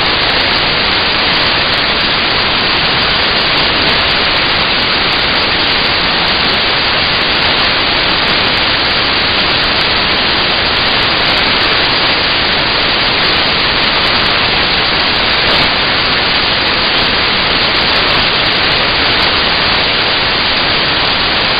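Loud, steady static hiss that does not change, with no other sound standing out.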